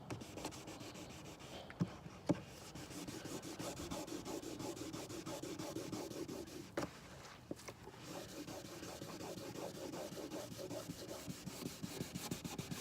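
Wet sanding of gel coat with 600-grit sandpaper: steady rubbing strokes of the paper over the wet surface. A few sharp clicks stand out around two seconds in and just before seven seconds.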